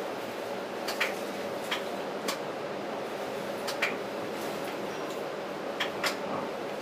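Toronto streetcar running along its tracks, heard from inside the car: a steady running hum with irregular sharp clicks and rattles, some in quick pairs.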